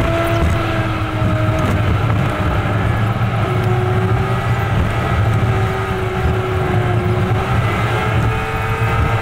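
Truck's engine and road noise heard from the cab: a steady rumble with a whine that slowly wavers in pitch.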